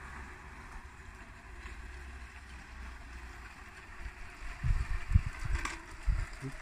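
Wind noise on the microphone: a steady hiss, with gusts buffeting the microphone in loud, irregular low thumps from about four and a half to six seconds in.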